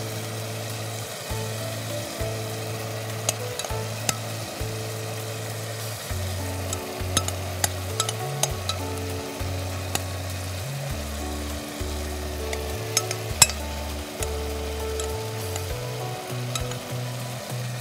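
Prawn balls and spiced gravy sizzling in a pot as they are stirred with a wooden spatula, with scattered sharp clicks of utensils against the pot, the loudest about thirteen seconds in. Soft background music with sustained low notes runs underneath.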